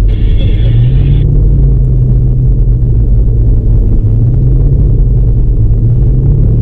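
Off-road vehicle driving on a sandy desert track: a steady, loud low rumble of engine and tyres on sand, with the engine note rising slightly about a second in. A brief higher-pitched noise sounds in the first second.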